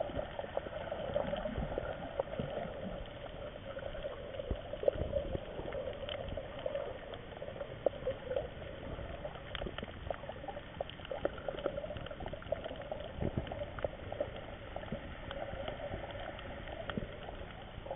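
Underwater ambience recorded on a coral reef: a steady hiss with scattered sharp clicks and crackles.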